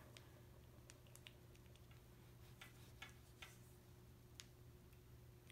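Near silence: room tone with a faint steady hum and a few faint, scattered clicks from fingers handling a small foundation bottle.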